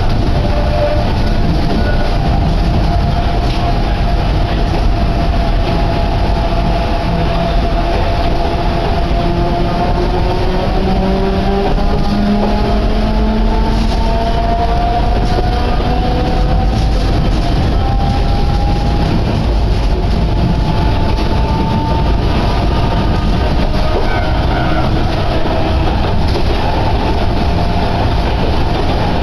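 Sangi Railway Hokusei Line narrow-gauge train heard from inside the car while running: a steady, loud noise of wheels on rail. Several thin whining tones slowly glide up and down in pitch through most of it.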